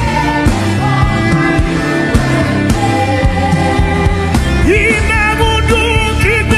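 Gospel worship music: sustained instrumental layers over a steady beat, with a singing voice coming in about five seconds in.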